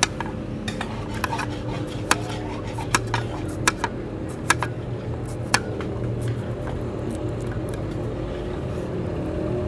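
Kitchen knife slicing through a cucumber and knocking on the cutting board, sharp single knocks at uneven spacing about once a second, thinning out in the second half.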